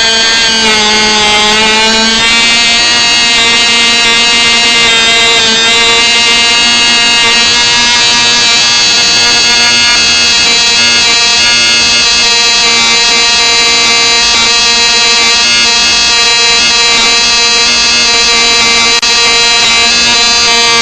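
Cox reed-valve two-stroke model glow engine running with its newly fitted reed valve, giving a loud, steady, high-pitched note. Its pitch sags slightly a couple of times near the start, then holds even.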